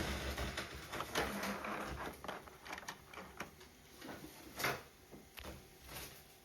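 Handling noises from unboxing Hot Wheels diecast cars: a stretch of rustling in the first two seconds, then scattered clicks and taps, with a sharper click about four and a half seconds in.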